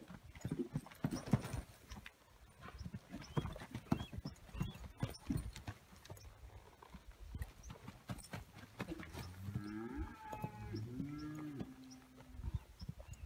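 Horse's hoofbeats thudding on a dirt pen floor as a ranch horse lopes and turns under a rider, densest in the first half. Near the end a faint call wavers up and down in pitch.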